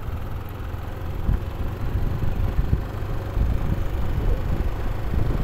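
Wind buffeting the microphone, a heavy, uneven low rumble that goes on without a break.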